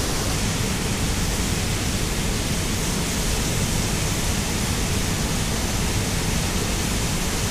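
Steady rushing noise of a portable gas camp stove burning under a pot of seawater at a rolling boil, blended with the wash of ocean surf.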